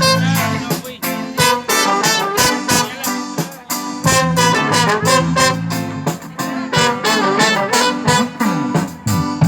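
A live band playing music with a steady drumbeat and a lead melody line.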